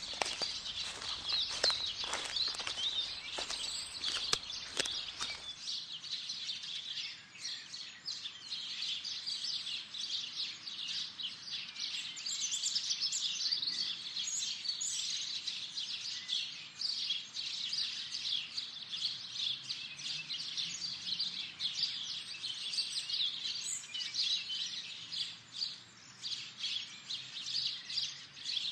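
Several small songbirds chirping and singing in a busy, unbroken chorus of short high notes. During the first five seconds or so, soft knocks and rustling clicks sound along with the birds, then stop abruptly.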